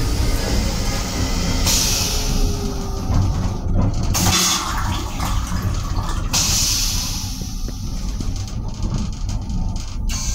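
Metro-North M7 railcar toilet flushing: a loud rushing hiss starts about two seconds in, surges again about six seconds in and dies away about eight seconds in. The railcar's running rumble continues underneath.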